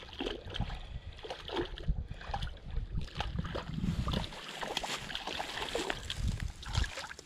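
Wind rumbling on the microphone, with scattered clicks and rustles of rod and reel handling and small splashes as a hooked crappie is reeled to the bank and landed.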